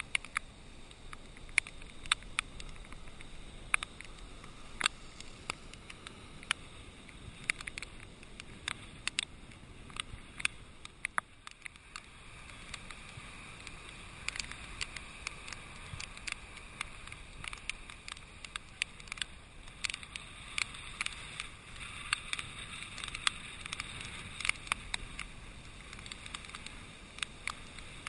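Wind-driven rain pattering on a GoPro's waterproof housing: irregular sharp ticks over a steady muffled rush of wind and surf.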